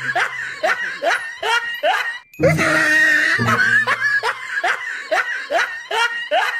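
Laughter sound effect: a run of quick 'ha' syllables, about three or four a second. It breaks off briefly a little over two seconds in and starts again with the same laugh, then stops abruptly near the end.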